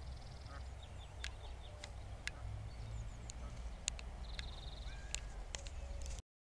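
Scattered short high bird chirps and two rapid trills, with a whistled call about five seconds in, over a steady low rumble of wind on the microphone; the sound cuts off abruptly near the end.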